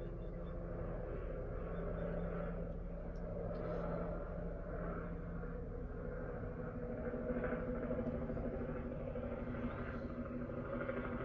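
Low steady background rumble with a faint hum whose pitch shifts about six and a half seconds in.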